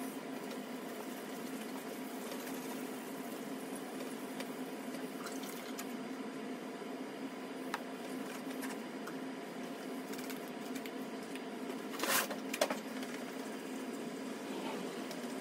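Hand wet-sanding the plastic dome of a Code 3 MX7000 lightbar: a soft, wet rubbing over a steady background hum, with two short, louder bursts of noise a little after twelve seconds in.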